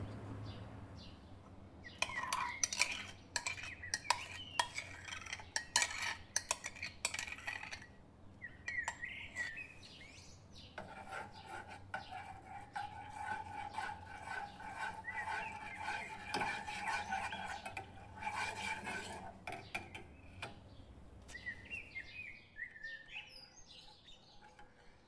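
A metal spoon stirring vigorously in a nonstick saucepan, scraping and clicking rapidly against the bottom and sides as a thickening custard-like mixture is worked smooth. Birds chirp now and then in the background.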